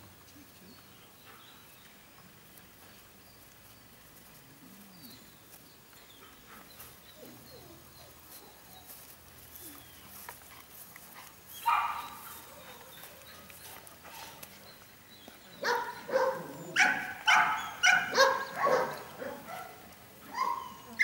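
Young female puppy barking: one sharp bark about halfway through, then a quick run of high-pitched barks and yips over the last few seconds.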